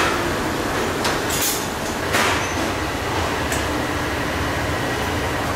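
Steady rushing noise of a busy commercial galley kitchen, with ventilation hoods and equipment running, and a few short clatters of metal pans and utensils, the loudest about two seconds in.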